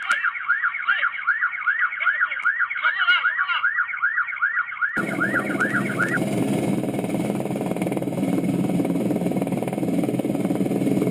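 Siren sweeping rapidly up and down, about three to four wails a second. About five seconds in, the sound cuts to a steady engine and wind noise from a moving vehicle, and the siren fades out a second later.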